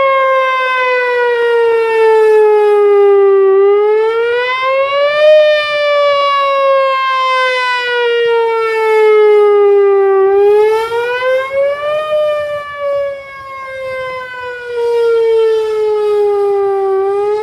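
Rotating outdoor tornado warning siren sounding a steady wail during a test. Its pitch slowly falls for a few seconds, then climbs quickly back up, about every six to seven seconds. It is louder at some points than at others as the horn turns, with a dip about two thirds of the way through.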